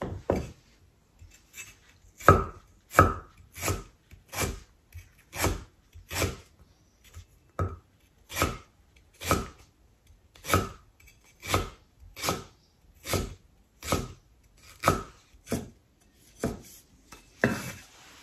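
Cleaver slicing through a firm peeled root and striking a thick end-grain wooden chopping block, a steady run of sharp chops about one and a half a second, after a single chop at the start.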